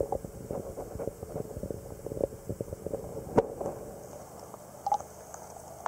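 Muffled sound of a camera held under pond water: irregular soft knocks and clicks from handling and water movement, with one sharper click about three and a half seconds in.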